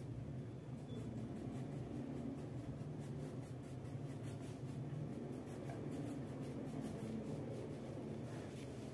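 Wax crayon scribbling on a paper coloring page: a faint run of scratchy strokes over a low steady hum.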